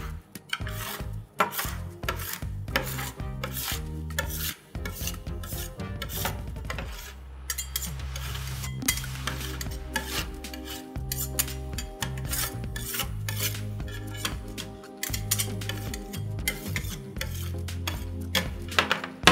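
Steel spatulas scraping and chopping a thin sheet of frozen grape drink on a cold steel ice-cream pan: quick, irregular rasping scrapes with sharp taps of metal on metal.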